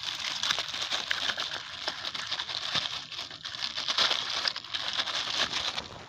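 Clear plastic bag crinkling and rustling as a cigarette packet is stuffed into it among other litter, a continuous crackly rustle.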